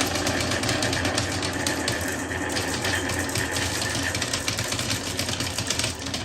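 Many balls rolling down connected TrixTrack plastic wave-slope track pieces in a dense, continuous rapid clatter, with a steady low hum underneath.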